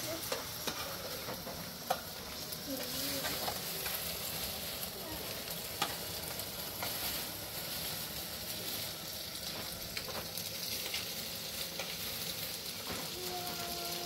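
A steady hiss with scattered crackles and clicks. A brief voice comes in near the end.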